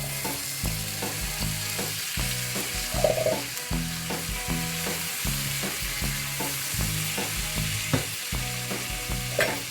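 Cooked black-eyed beans sizzling in hot oil and spice masala in a pan as they are stirred in, over soft background music with a steady low bass rhythm.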